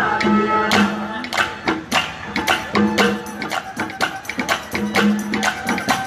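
Instrumental interlude of live Haryanvi ragni folk music: fast, dense hand-drum strokes with jingling percussion over held melodic notes.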